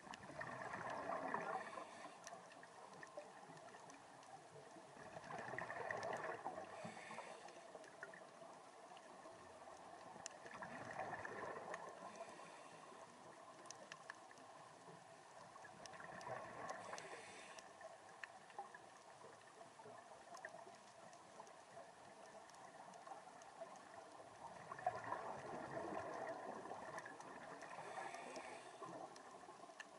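Scuba diver breathing through a regulator underwater: faint bubbling and gurgling that swells and fades about every five seconds, with a longer pause around twenty seconds in.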